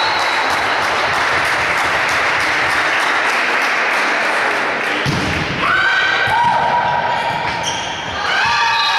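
A volleyball rally in a reverberant sports hall: a dense din with ball thuds. About five and a half seconds in come high, drawn-out shouts held at a steady pitch, then more near the end, players' voices cheering the point.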